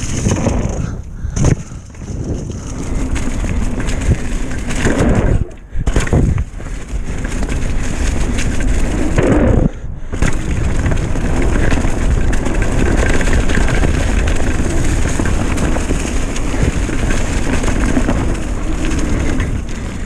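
Retro downhill mountain bike riding fast down a dirt forest trail: a steady, loud rumble of knobby tyres rolling over leaf-covered ground and bike noise, with the noise dropping out sharply for a moment a few times.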